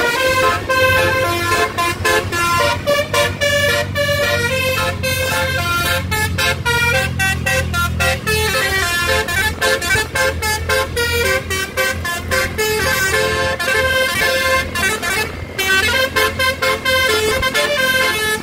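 Tour bus's multi-note basuri (telolet) horn playing a quick tune of short, changing notes, over a steady low rumble of engines and road noise.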